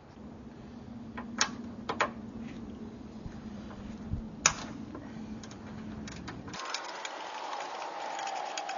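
A few sharp plastic clicks and snaps as trim clips are worked loose from an Infiniti G35's cowl panel and hood seal, over a low steady hum. About two-thirds through the hum stops and a brighter hiss with a faint falling tone takes over.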